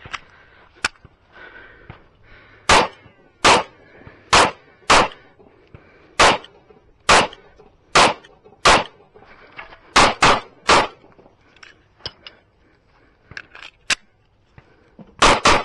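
Sig Sauer P365 9mm pistol firing a stage string of about thirteen shots. The shots come roughly a second apart at first, then a quick run of three about ten seconds in, then a pause of several seconds, then a fast pair near the end.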